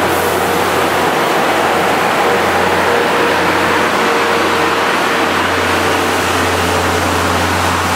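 Steam-hauled passenger train running past, a loud steady rushing noise with a constant low hum underneath.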